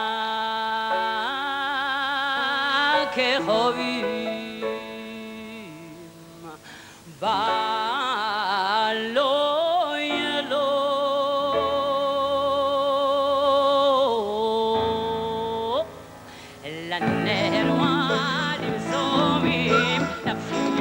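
A woman sings a slow, ornamented Yemenite-style solo line, with long held notes, wide vibrato and melismatic runs, over sustained orchestral chords. After a brief pause about sixteen seconds in, the orchestra comes in more fully under her voice.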